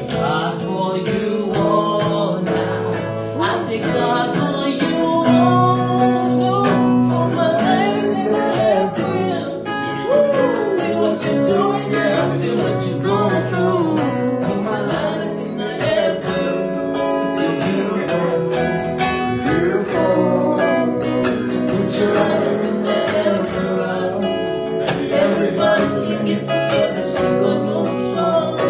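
Live acoustic jam: an acoustic guitar strummed over keyboard chords, with a man singing into a handheld microphone, his voice sliding up and down in melodic runs.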